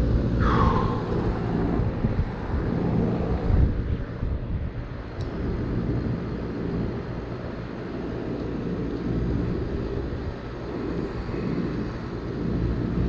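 An R-410A central air conditioner's outdoor condensing unit running steadily, its condenser fan and compressor giving a low, even hum. There is a short falling squeak just after the start.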